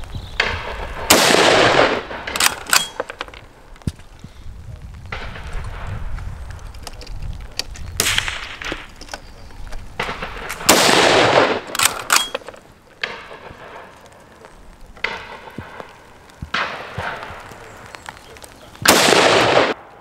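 Four rifle shots several seconds apart from a Schmeisser SP15 straight-pull .223 rifle. Some shots are followed by short, sharp clicks.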